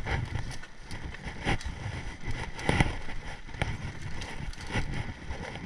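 Low wind rumble buffeting an action camera's microphone, with several sharp knocks and rattles, the loudest near the middle.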